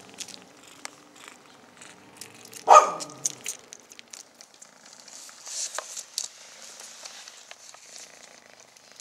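Young kitten sucking on a human finger, with many small wet sucking clicks over a low purr. A single loud, short cry with a falling pitch about three seconds in.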